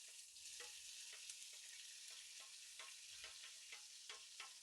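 Chopped onion, tomato and chili sizzling steadily in hot oil with whole tempering spices, with the spatula knocking and scraping against the pan as it is stirred several times.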